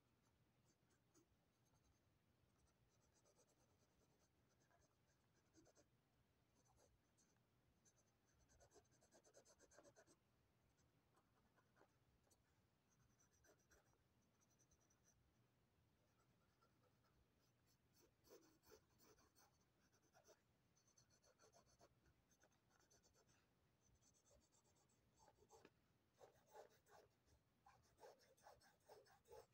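Faint scratching of a graphite pencil sketching on sketchbook paper, in runs of short strokes that grow busier around two-thirds of the way through and again near the end.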